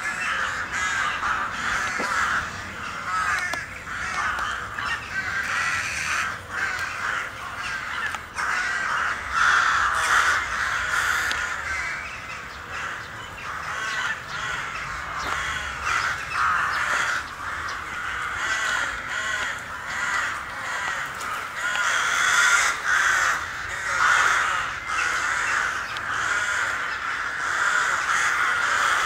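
A large flock of crows cawing continuously, many birds calling over one another in a dense chorus.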